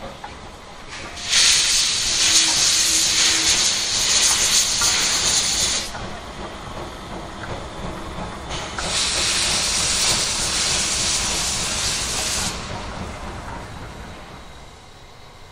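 D51 200 steam locomotive letting off steam: two loud hisses of about four seconds each, the first starting about a second in and the second a few seconds after the first stops, over the low rumble of the train.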